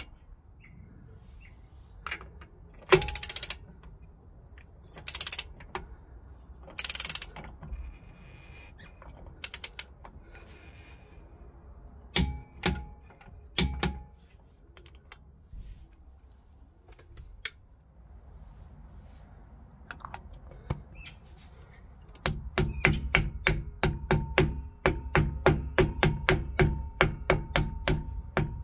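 Wrench work on a Nissan Micra K12's rear wheel hub nut: a few short ratcheting bursts, then two sharp metallic clicks as the nut is torqued. From about three-quarters of the way in, a club hammer taps quickly and evenly, about four taps a second, on the hub's metal grease cap to seat it.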